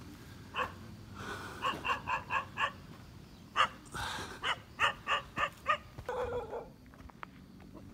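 Dog barking at an approaching stranger: short, sharp barks in quick runs of four or five, ending in a longer, lower bark.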